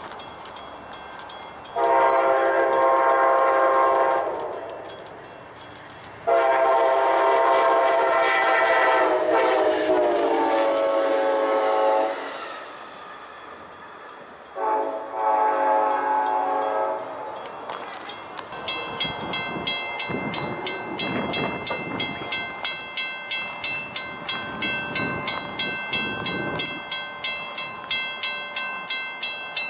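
Train air horn sounding a chord of several notes in three blasts: a short one, a long one whose pitch sags near its end, and another short one. Then a fast, even run of metallic ringing strikes, several a second.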